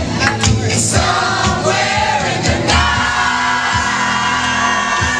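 Loud pop song played over a party sound system, with many voices of a dancing crowd singing along and a few whoops.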